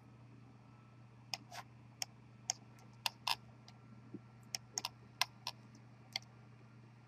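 Computer mouse button clicks and scroll-wheel clicks, a dozen or so short sharp clicks at irregular spacing, over a steady low electrical hum.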